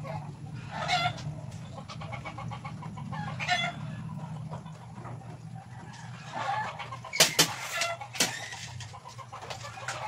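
Chickens clucking now and then over a steady low hum, with a few sharp clicks about seven to eight seconds in.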